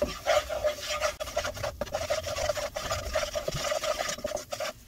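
Wooden spoon scraping and stirring flour as it toasts in olive oil in a nonstick pot, a quick steady run of scraping strokes, making a roux.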